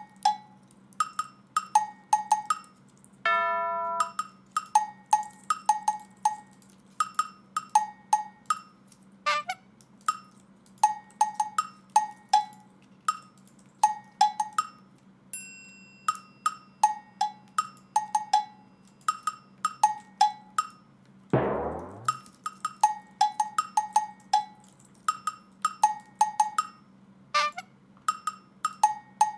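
Background music: a light percussion tune of short, pitched, cowbell-like taps in regular groups, with a held chord about three seconds in and a falling swoop around the middle.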